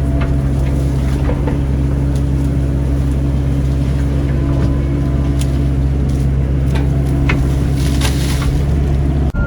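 Caterpillar 307C excavator's diesel engine running steadily under digging work, with scattered sharp knocks and clanks. A brief hiss comes about eight seconds in.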